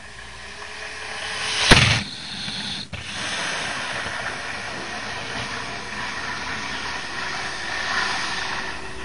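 Model trains running on their track: a steady rushing hiss of wheels and motors, broken by a sharp click just under two seconds in and a smaller one about a second later.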